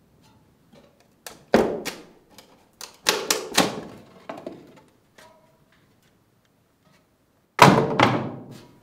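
Irregular knocks and thuds of objects being handled and bumped, with a cluster of several knocks in the middle and one loud thud near the end.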